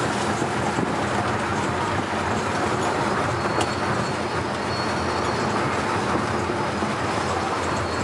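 Steady rumble and hiss of a moving vehicle: road and wind noise from riding along. A faint thin high tone comes in about halfway through.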